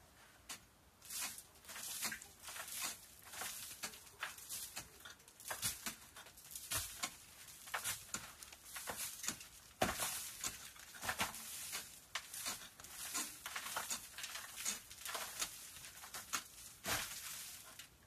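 Hand pick (kazma) scraping and chipping at a cave's rock ceiling: a quick, irregular run of scrapes and knocks, several a second, with a few harder strikes about halfway through and near the end.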